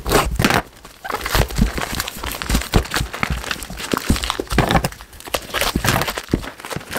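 Plastic mailing bag being cut and torn open by hand, crinkling and rustling in irregular bursts as a boxed item is pulled out, with some low knocks from handling.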